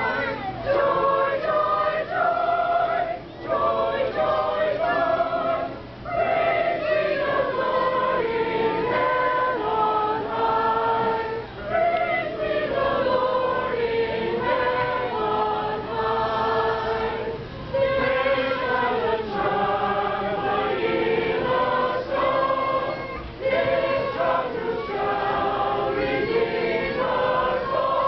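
A group of carolers singing a Christmas carol together, men's and women's voices mixed, in phrases a few seconds long with short dips between them.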